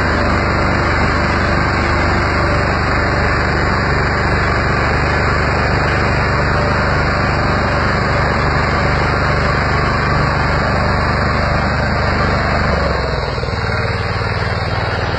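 Rice combine harvester's engine running steadily under load, easing off slightly near the end.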